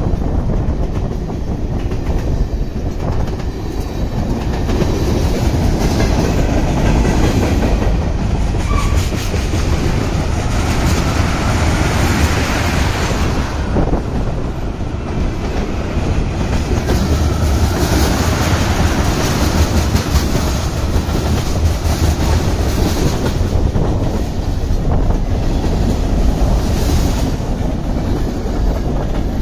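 Mixed freight train cars rolling past a few metres away: a steady, loud rumble with the wheels clacking over the rail joints.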